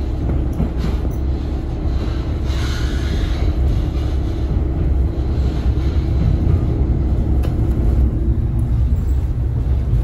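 Inside a KiHa 40 diesel railcar on the move: a steady, loud low rumble of the underfloor diesel engine and the wheels on the track, with a constant hum.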